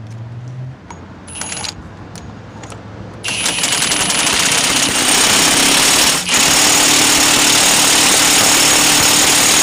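Impact wrench hammering continuously as it runs the pitman arm nut tight onto the steering gearbox's pitman shaft. It starts about three seconds in after a few clicks, and it is loud and steady, with one brief break.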